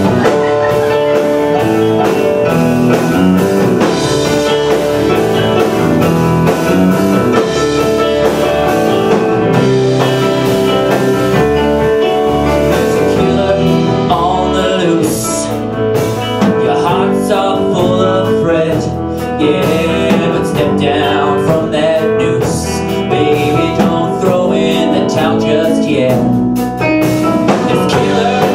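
Live rock band with electric guitar, bass, keyboard and drum kit playing a steady groove, with a male lead vocal coming in about halfway through.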